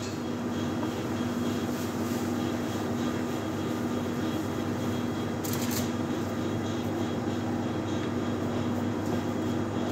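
Steady mechanical drone with a constant low hum, with a short light clatter about five and a half seconds in.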